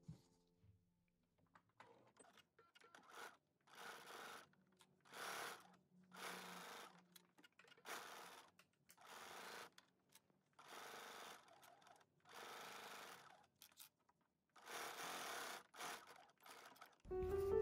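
Bernina B570 sewing machine stitching in short stop-start spurts of about a second each, with brief pauses between them as binding is fed through.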